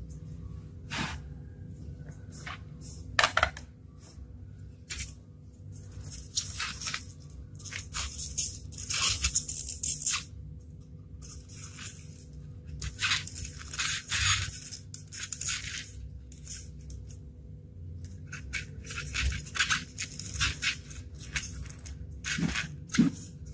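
Irregular bursts of rustling and scraping as hands handle a small foam boat hull and press a mini motor and battery onto it, with a few sharp clicks.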